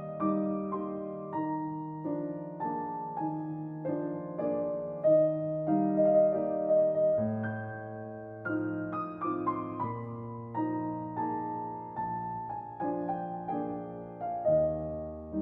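Instrumental piano music, a slow, gentle holiday melody with a steady bass line.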